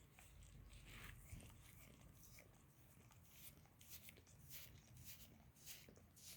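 A dog licking a person's foot up close: faint, irregular licking and smacking strokes, several a second.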